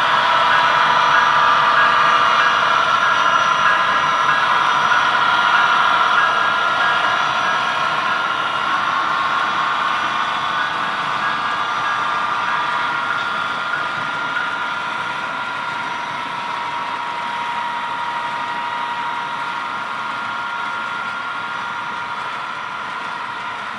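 Model railroad diesel train running past, a steady mechanical engine drone from the locomotives slowly fading as the train moves away.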